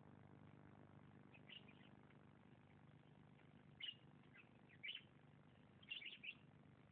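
Faint, high bird chirps: a few short calls spaced a second or so apart, ending in a quick cluster near the end, over a low steady hum.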